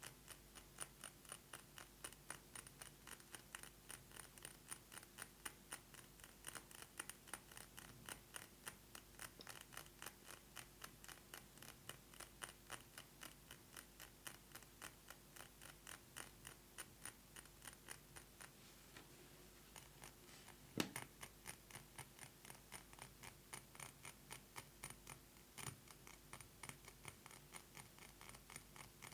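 Rapid fingernail tapping on a perfume bottle, several quick taps a second. The tapping pauses briefly about two-thirds of the way through, then resumes with one louder knock.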